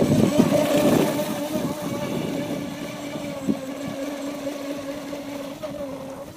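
Brushless electric motor of a VolantexRC Racent Atomic 792-4 RC racing catamaran running at speed, a steady whine that grows gradually fainter.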